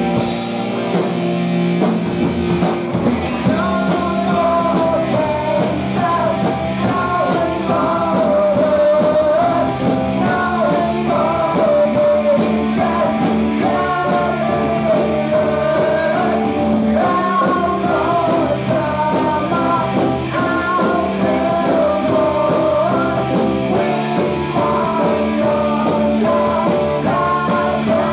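Live rock band playing on amplified electric guitars and drum kit, with two boys singing into microphones over it.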